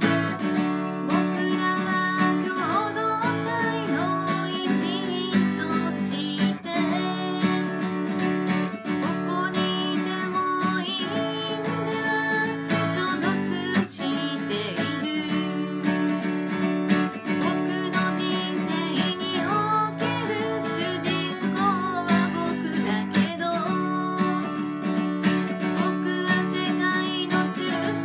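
A solo singer singing a Japanese song to a strummed steel-string acoustic guitar, capoed high on the neck. The guitar is strummed throughout, and the voice comes in about a second and a half in.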